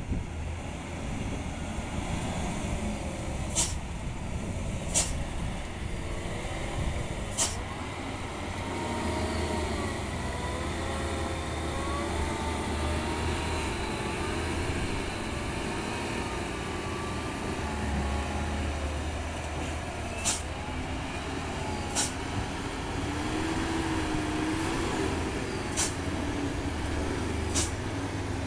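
Diesel engine of a loaded Hino dump truck working under load as it crawls up a dirt track, its pitch wavering up and down. A few sharp clicks come now and then.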